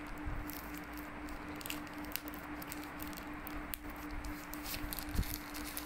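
A thin plastic wrapper crinkling and rustling in the fingers as a mobile-phone battery is unwrapped: irregular crackles throughout, over a faint steady hum.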